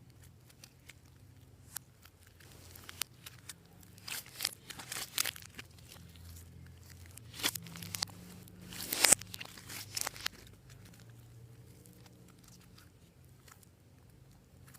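Clear slime being worked by hand, giving scattered sticky crackles and pops that bunch up about four seconds in and again around eight to ten seconds, the loudest near nine seconds.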